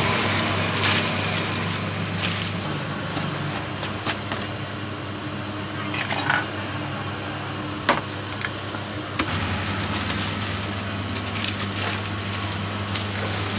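A steady low mechanical hum, with a few short plastic rustles and clicks as cut fruit is bagged and sauce is spooned into a small plastic cup.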